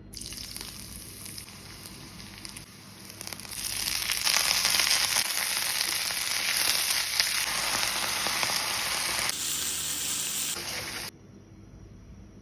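Food sizzling in hot oil in a frying pan. The sizzle grows much louder about three and a half seconds in, then stops abruptly near the end.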